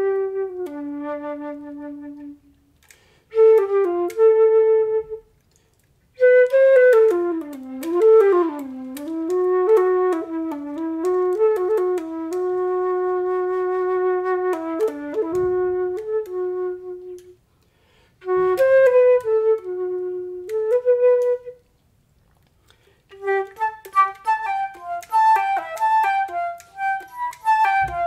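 Solo silver concert flute playing slow melodic phrases with short pauses between them: long held notes, a passage where the pitch sways up and down, and a run of quicker notes near the end.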